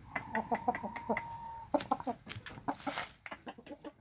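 Chicken clucking in quick, irregular short notes, with a faint steady tone behind it through the first half and a brief hiss about three seconds in.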